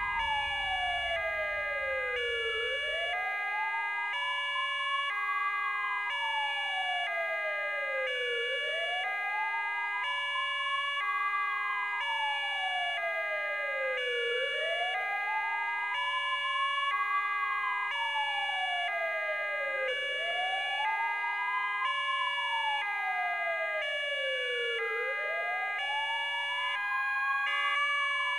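Ambulance siren in a slow wail, its pitch climbing and falling back about every six seconds without a break.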